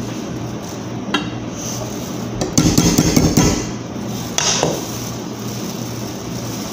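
Kitchen clatter of a utensil knocking against cookware: a single knock about a second in, a quick rattling run of knocks about two and a half seconds in, and another knock about four and a half seconds in.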